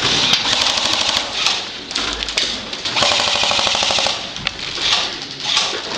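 Airsoft gun firing full-auto in two long rapid bursts. The first runs for about two seconds from the start, and the second comes about three seconds in and lasts just over a second.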